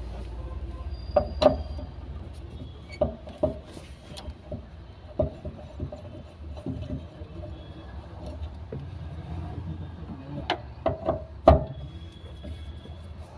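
Metal hand tools knocking and clicking against a car's in-tank fuel pump assembly as it is worked on. It is an irregular string of sharp taps, with a cluster of louder knocks near the end, over a low steady hum.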